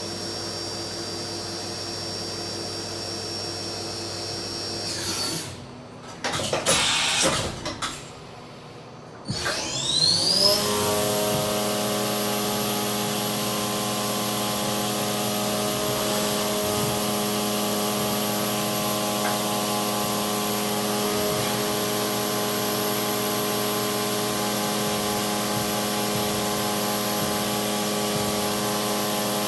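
Akira Seiki SV1050 vertical machining center running with a steady machine whine. About five seconds in the whine stops and there is a short noisy burst. About ten seconds in a rising whine, like the spindle spinning up, settles into a louder steady whine with a high tone on top.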